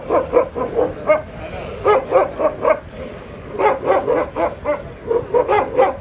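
Large long-haired dogs barking in four quick runs of short barks, with brief pauses between the runs.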